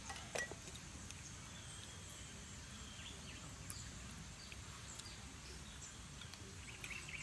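Quiet forest ambience: a steady faint background hiss with a few faint bird chirps, and a couple of light clicks about half a second in.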